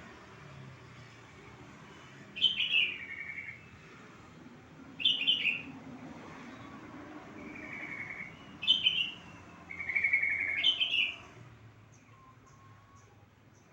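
Yellow-vented bulbul (trucuk) calling: five short chattering phrases a couple of seconds apart, each falling in pitch, the fourth and fifth close together near the end.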